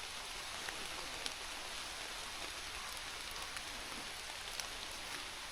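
Steady rain falling, an even hiss with a few single drops ticking here and there.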